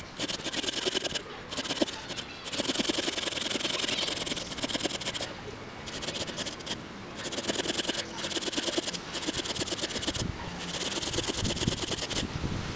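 Sheath knife blade shaving and scraping a sweet chestnut log, in a series of rasping strokes each a second or so long with short pauses between them.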